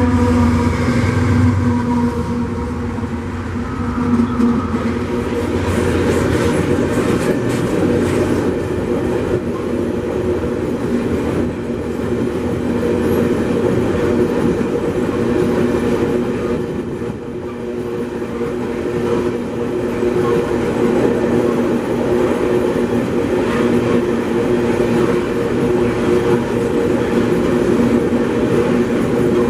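A pair of GE AC44i diesel-electric locomotives passes close by, their engine rumble fading in the first couple of seconds. A long string of empty GDU ore gondola wagons follows, rolling past with a steady wheel-on-rail rumble and scattered clicking.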